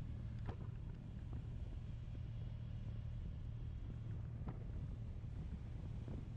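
Motorcycle engine running steadily while riding, a low even hum, with a few faint short clicks.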